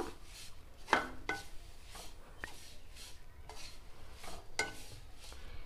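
Spatula stirring and scraping dry-roasting drumstick leaves in a nonstick kadai: a series of light scrapes and taps against the pan with the rustle of the crisp leaves, the loudest about a second in.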